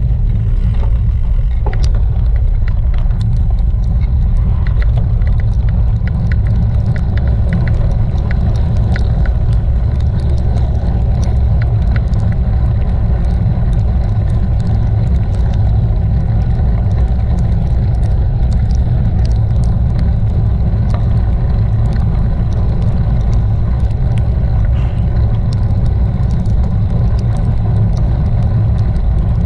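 Steady low rumble of a bicycle ride picked up by a bike-mounted camera on a wet path, the wind and road vibration heavy on the microphone. Scattered light ticks sound over it.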